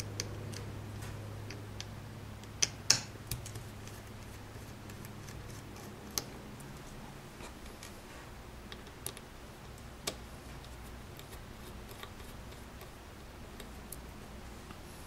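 Scattered small clicks of a screwdriver turning out the tiny screws that hold a hard drive's circuit board, the loudest pair about three seconds in. A low hum fades out after the first few seconds.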